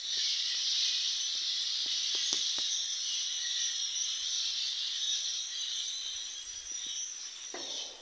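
Massed chattering of a huge flock of blackbirds: a dense, unbroken, high-pitched din. Near the end it fades after a brief whooshing rush as birds take flight.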